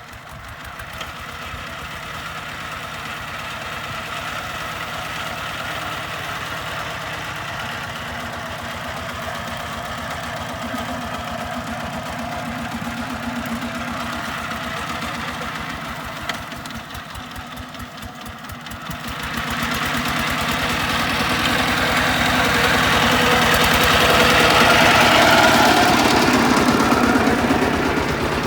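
Kubota RT140 walking tractor's single-cylinder diesel engine running with a steady chugging beat. It grows louder about two-thirds of the way through, as if working harder or coming closer.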